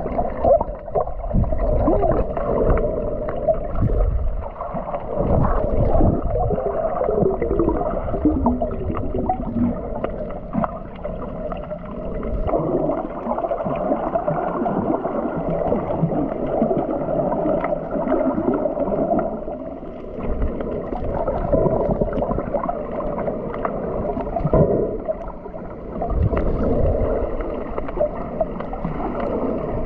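Muffled underwater sound from a camera held under the sea: water moving and gurgling around the housing, with a few wavering pitch glides.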